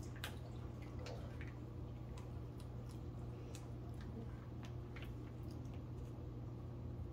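Faint, irregular ticks and crinkles of fingers working at a small sauce packet to tear it open, over a low steady hum.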